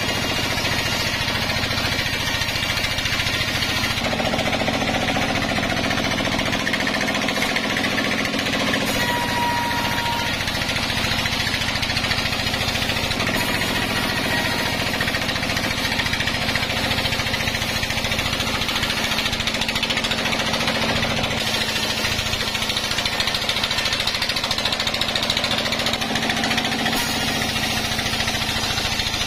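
Sawmill band saw cutting lengthwise through a green log: steady loud running with a fast rattle, which changes abruptly a few times where the footage is cut.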